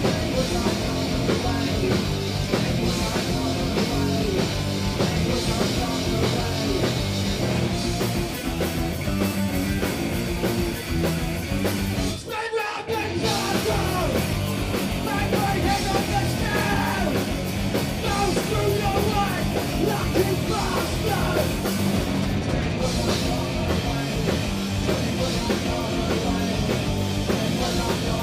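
Live punk rock band playing loud: distorted electric guitar, drum kit and a shouted lead vocal. The music stops for about a second roughly twelve seconds in, then the band comes back in.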